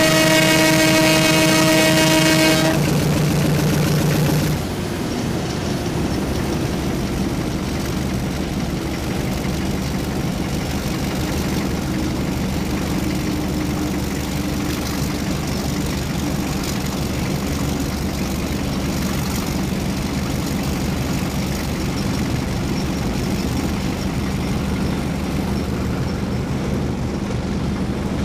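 Horn of the DT12002 locomotive sounding one long blast that cuts off about three seconds in, followed by the locomotive's steady running noise as the train travels.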